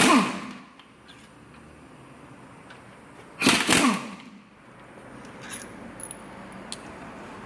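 Metal engine parts clanking and scraping as a part is taken off during an engine teardown: two loud clatters about three and a half seconds apart, each sliding down in pitch, then a few light clinks.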